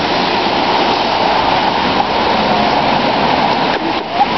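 Steady, loud rushing noise with no clear pitch, and a short high rising sound near the end.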